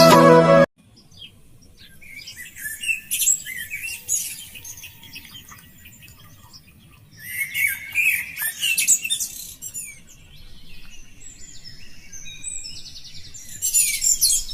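Songbirds chirping and singing, many short calls overlapping, busiest about two to four seconds in, again around eight seconds and near the end. Music cuts off just under a second in.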